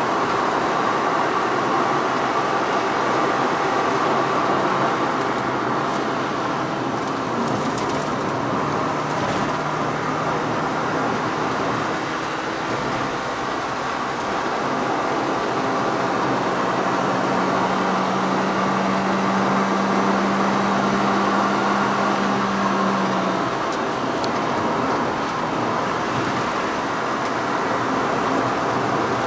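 Car engine running under load with tyre and road noise, heard from inside the cabin while driving on a track. Around the middle a low engine note holds a steady pitch for several seconds.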